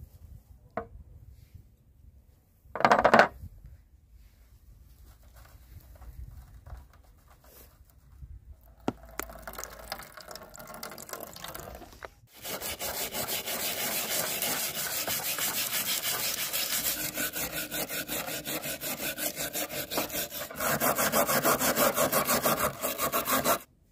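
Brush scrubbing rusty steel pickaxe parts in a tray of soak liquid, in rapid back-and-forth scraping strokes for about the second half, getting louder near the end. The scrubbing lifts off rust that a Red Bull soak has loosened. A short loud clatter of metal comes about three seconds in.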